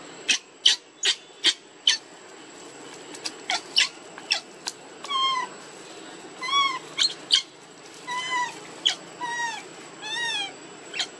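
Baby macaque crying: a quick run of short, sharp squeaks, then several whimpering calls in the second half, each rising and then falling in pitch.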